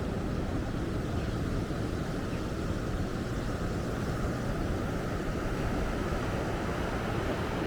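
Steady wash of ocean surf, with wind noise on the microphone.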